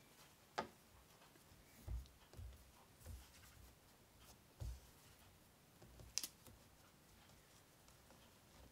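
Near silence with faint handling noises of quilt fabric and paper being positioned on a table: a few soft knocks and light clicks, the sharpest about six seconds in.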